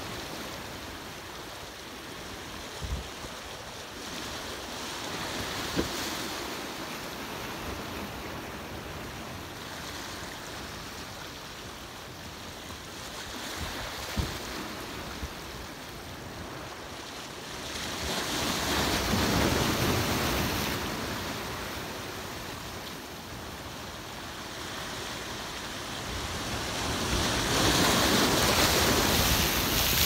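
Ocean surf washing against shore rocks: a steady rush of water that swells as waves break, once about eighteen seconds in and again near the end.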